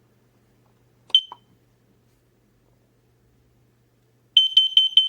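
X-Sense XC04-WX carbon monoxide alarm beeping: a single high chirp about a second in, then a quick run of high beeps near the end.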